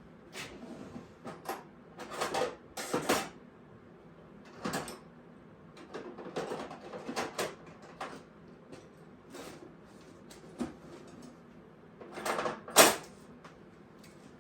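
Irregular knocks, clicks and scrapes of hard objects being handled and set down, with a loud sharp knock near the end.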